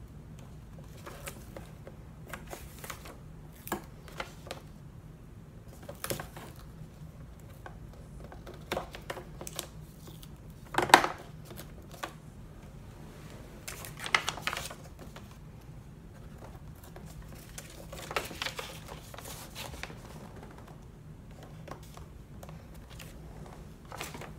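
Paper envelopes being handled and fitted together on a table: scattered soft rustles, taps and clicks, the loudest about eleven seconds in and again around fourteen seconds.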